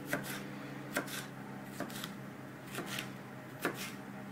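Kitchen knife slicing a yellow bell pepper on a wooden cutting board: separate cuts about a second apart, each a short knock of the blade through the pepper onto the board.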